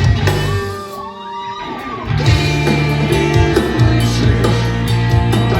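Rock band playing an instrumental passage led by guitar: the band drops out about half a second in, leaving a few held guitar notes, then the full band with bass and drums comes back in about two seconds in.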